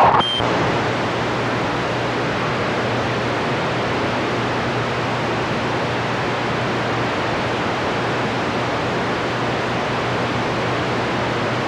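Steady hiss of static from a radio receiver on the 28 MHz band with no station coming through. A short beep sounds at the very start as the last transmission drops.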